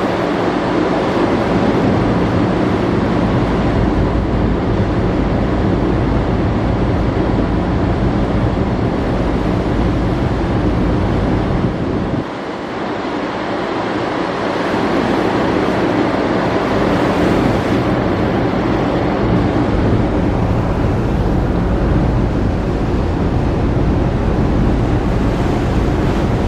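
Wind buffeting the microphone on the open deck of a moving cargo ship, over the wash of the sea and a low, steady hum from the ship's engine.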